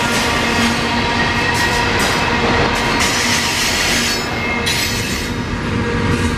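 Double-stack container train cars rolling past, with steady wheel squeal from the curve ringing over the rumble of the wheels on the rails.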